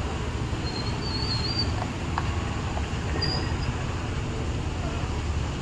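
Steady low background rumble of outdoor noise, with a few faint ticks and two brief faint high chirps.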